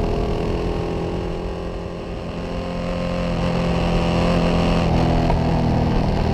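Ducati Diavel's L-twin engine running while riding, easing off about two seconds in, then pulling harder with its pitch rising and getting louder, over rough wind noise.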